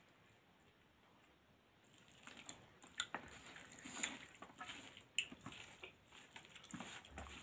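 Fingers squishing and mixing rice and dal on a steel plate, with eating and chewing mouth sounds: after a quiet second or two, irregular soft squelches and small sharp clicks.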